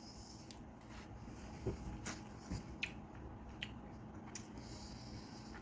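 Faint eating sounds: soft chewing with scattered short clicks and a couple of low soft thuds.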